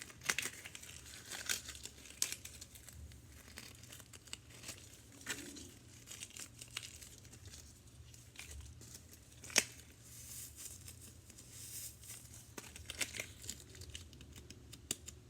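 Faint crinkling and rubbing as homemade balloon stress balls are handled, with scattered small clicks and one sharper click a little after halfway.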